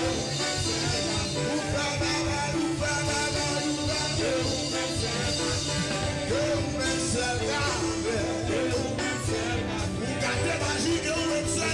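Live church worship music: a man singing a worship song into a microphone over a continuous band accompaniment with a steady beat.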